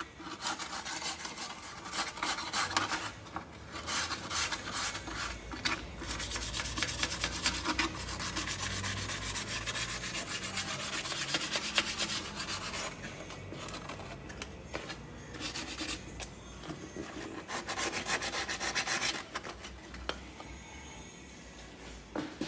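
Abrasive paper scrubbed against the oil-pan mating surface of a Ford 4.6 V8 engine block, cleaning it for the new pan gasket. The scraping comes in four spells with short breaks, the longest about seven seconds.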